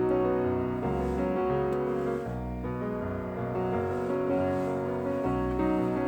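Background instrumental music led by piano.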